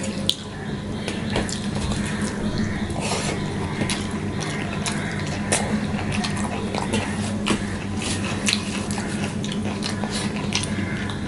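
Fingers kneading wet rice and vegetable curry against a steel plate, a squelching, scraping sound with many small clicks on the metal, along with chewing of a mouthful.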